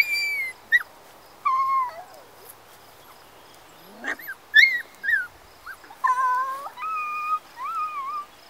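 Four-week-old golden retriever puppies whining and yelping: a string of short high-pitched whines, some sliding up or down in pitch, with a pause of a second or two in the middle.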